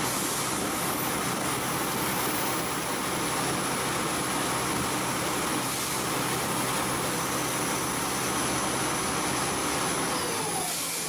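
NC lathe running, its spindle spinning a workpiece while the tool cuts it into a rounded shape: a steady cutting hiss with a thin high whine over it.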